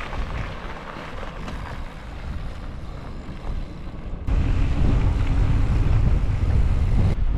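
Wind rumbling on the microphone during a bike ride, jumping suddenly much louder about four seconds in.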